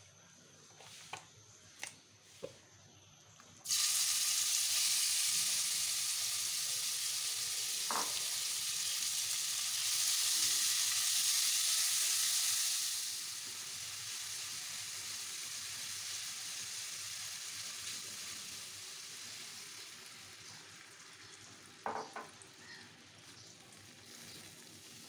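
Boneless chicken pieces frying in hot oil in a nonstick pan. The sizzle starts suddenly about four seconds in and is loudest a few seconds later. It then slowly softens as liquid collects in the pan, with a couple of light knocks from the silicone spatula stirring the pieces.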